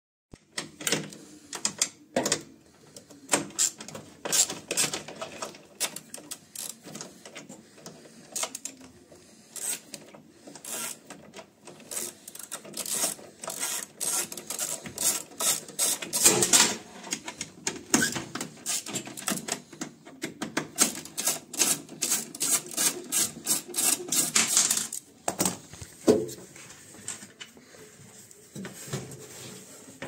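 Hand tools clicking and clattering on the metal fittings of a washing machine's drive motor as it is unbolted: irregular sharp clicks, with a dense run of quick ticks about three quarters of the way through.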